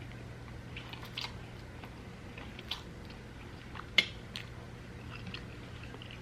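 A person chewing food close to the microphone, with soft mouth sounds and scattered small clicks; one sharp click about four seconds in is the loudest.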